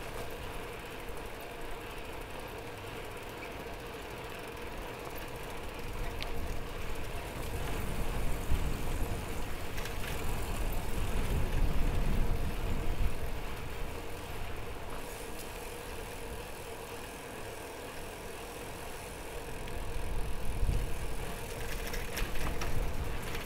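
Road noise heard from a mamachari city bicycle on the move, a steady hum under a low rumble that swells twice: once in the middle and again near the end.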